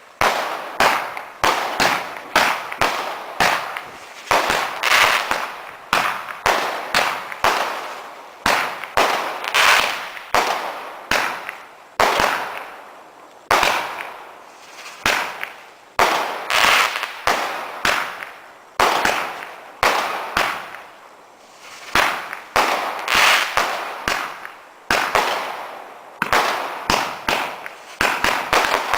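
Multi-shot consumer firework cake firing a rapid, continuous barrage: sharp bangs about once or twice a second, each trailing off in a fading hiss.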